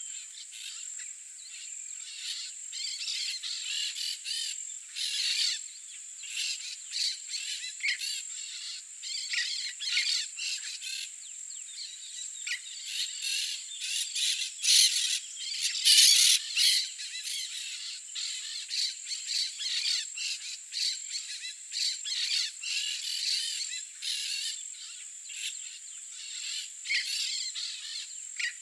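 Marsh wildlife chorus: a steady high insect whine runs underneath many overlapping chirps and clicks from frogs and birds. It is busiest and loudest about halfway through.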